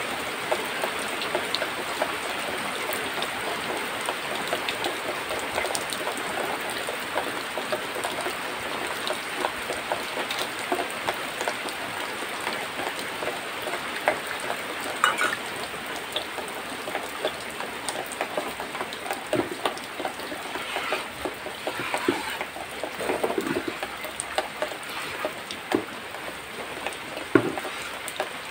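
A cow being milked by hand, streams of milk squirting into a small metal bowl: a steady spattering hiss, with scattered louder splashes in the second half.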